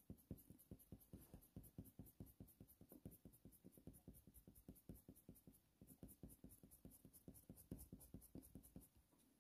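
Faint, quick strokes of a Faber-Castell Polychromos coloured pencil scratching over hot press watercolour paper, about five strokes a second, as light layers of colour are built up.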